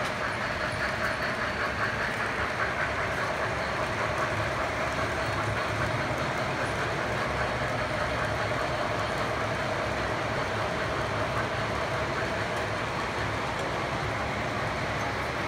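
O scale model trains running on the layout's track: a steady running sound of wheels and motors, with faint regular clicking.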